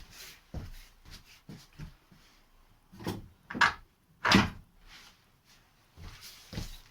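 Irregular clunks and knocks of a VAZ-2115 steering rack being worked loose and pulled out from under the car, with the two loudest knocks close together near the middle.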